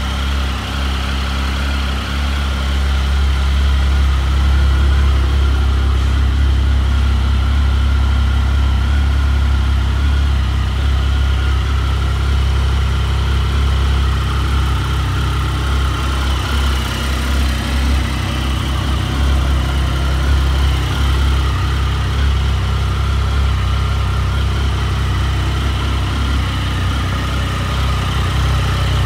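Triumph Sprint GT 1050's three-cylinder engine idling steadily.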